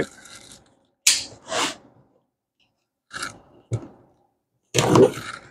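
Pocket knife cutting open a cardboard box: a few short scraping slices and a sharp click, then a longer scraping stretch near the end.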